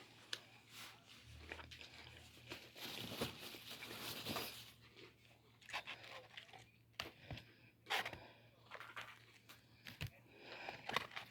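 A person eating crispy fried chicken: irregular crunching bites and tearing of the breaded skin, with chewing in between.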